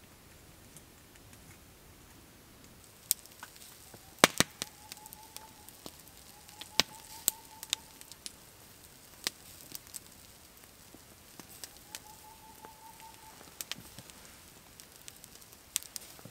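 Open wood campfire crackling, with sharp pops scattered irregularly from about three seconds in; before that only quiet background.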